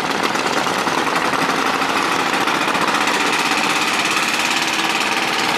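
Small boat engine running steadily, with a fast, even rattling beat.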